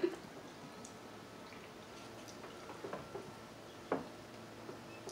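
Quiet eating sounds: soft wet chewing and mouth noises with a few small ticks and clicks of hands working the seafood, the sharpest about four seconds in.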